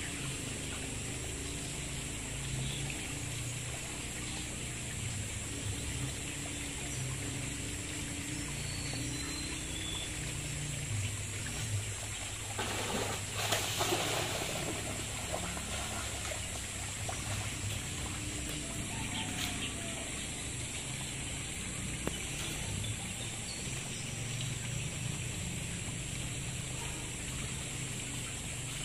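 Water splashing as a long-handled hand net is swept through a shallow muddy pond, with the loudest burst of splashing about halfway through and smaller splashes later.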